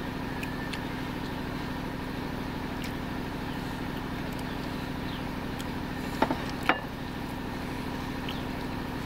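A steady low machine hum with a fine regular pulse. About six seconds in, two sharp clinks of dishes being handled and set down on the table.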